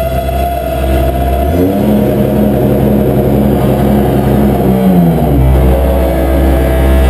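Loud, droning industrial electronic music played live: a dense stack of held tones over deep bass. About a second and a half in the bass drops out and a higher held tone takes over, sliding back down around five seconds in as the bass returns.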